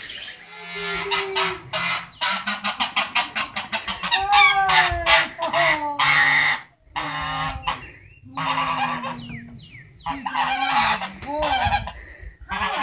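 White domestic goose honking repeatedly: a quick run of short honks, then longer drawn-out calls that rise and fall in pitch.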